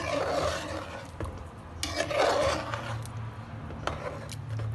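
A metal spoon stirring a thick curd gravy in a metal pot, scraping along the pot in two long strokes, each about a second, with a few light clicks of spoon on metal. A steady low hum runs underneath.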